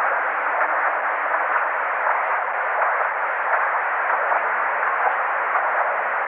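Loud, steady hiss of static, an even band of noise with neither deep bass nor high treble: the sound of a corrupted, glitched recording.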